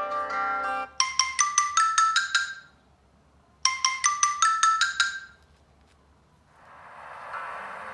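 Samsung Galaxy S5 stock ringtone: a quick run of about a dozen bright, marimba-like struck notes stepping upward, played twice with about a second's pause between. Before it, the tail of another plucked-tone ringtone cuts off about a second in. Near the end a soft sustained tone of the next ringtone fades in.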